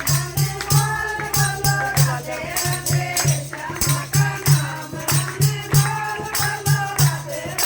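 Devotional kirtan: a group singing with a steady, quick drum beat and jingling hand percussion.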